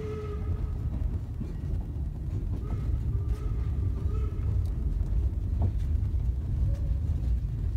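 Steady low rumble with no clear pitch, and a few faint clicks.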